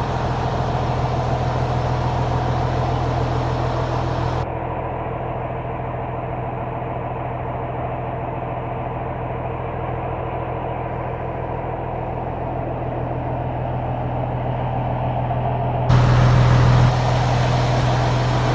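A motor running steadily with a low, even hum. About four seconds in the sound turns duller, and near the end it returns louder and fuller.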